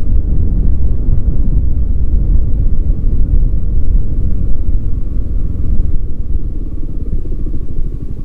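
Motorcycle running along the road, a steady loud low rumble of engine and road noise.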